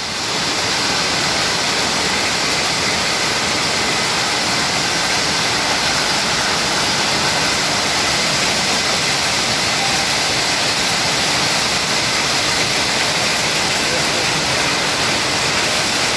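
Steady machinery din of a jute mill: a loud, even noise with faint steady hums running through it, swelling in over the first second and then holding level.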